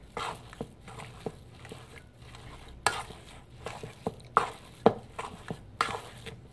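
A hand kneading and squeezing sticky seitan dough of vital wheat gluten in a stainless steel mixing bowl: irregular squelches and soft knocks against the bowl, about one or two a second.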